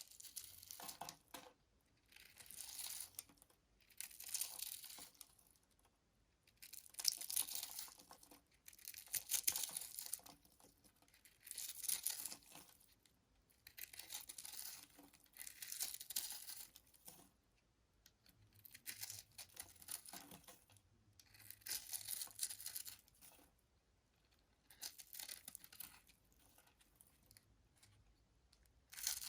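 A knife cutting through soap: crisp, crackly slicing strokes, each about a second long, repeated roughly every two seconds, about a dozen cuts in all.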